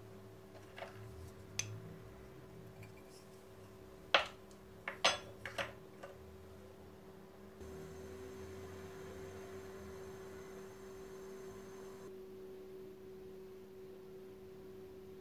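Sharp metal clinks and knocks of a spoon and a small stainless steel pot, the loudest cluster about four to six seconds in. A steady faint hiss follows for about four seconds as the pot sits on the gas hob with butter in it. A faint steady hum runs underneath.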